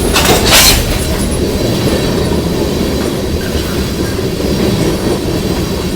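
CSX freight train's cars rolling past on the rails: a steady, loud low rumble, with a brief sharp high-pitched noise about half a second in.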